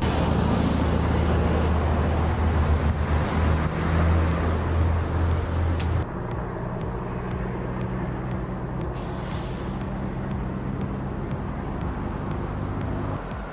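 A heavy vehicle's engine running with a steady low drone, loudest for about the first six seconds. It then drops suddenly and runs on more quietly until it cuts off just before the end.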